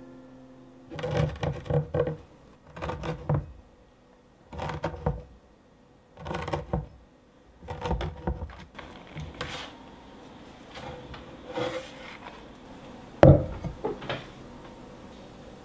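A drinking glass pressed and twisted rim-down through a sheet of craquelin dough onto a wooden cutting board: repeated clusters of soft knocks and rubbing, one cutting about every second and a half. Later there is quieter scraping and a single sharp knock, the loudest sound, as a spatula works choux dough in a glass bowl.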